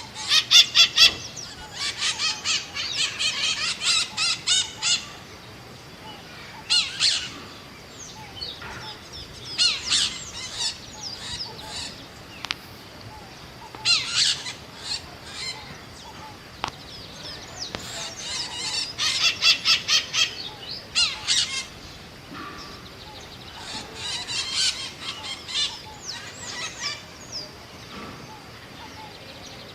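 Scaly-headed parrots calling in bouts of rapidly repeated calls, about four a second, with pauses of a few seconds between bouts.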